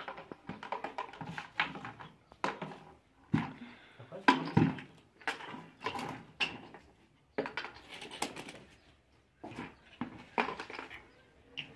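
Plastic bottle caps and small PVC fittings being picked up and dropped against a plastic bucket: irregular hollow plastic clicks and clatters, thickest about four to five seconds in.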